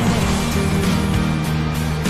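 Background pop song: an instrumental stretch with steady held low notes between sung lines.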